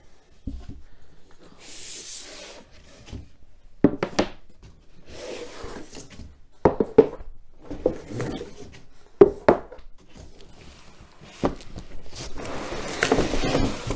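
Flat-pack shelf panels being handled and moved about: scattered wooden knocks and clacks with sliding, rubbing and rustling noise between them.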